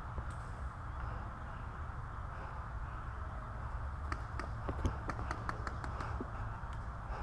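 Steady outdoor rumble. From about four to six seconds in comes a quick run of sharp, faint pops, about ten of them: paintball markers firing during play.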